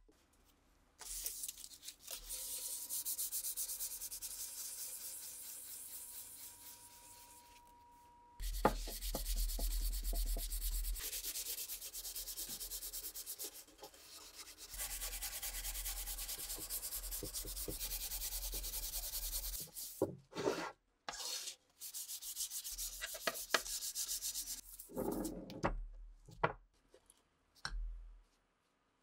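Hand-sanding a bare wooden rifle stock with sandpaper: continuous rasping strokes that get louder about eight seconds in, breaking into short separate strokes in the last several seconds.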